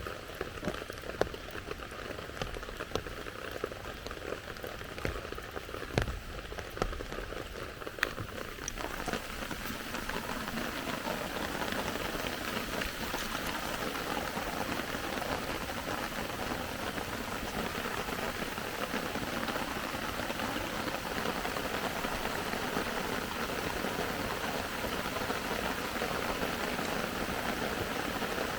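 Rain: a few scattered drops and taps at first, then about nine seconds in a steady, dense hiss of rain sets in and keeps on.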